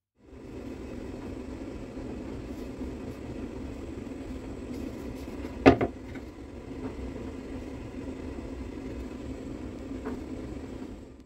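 Steady workshop machine hum with a single sharp knock about halfway through.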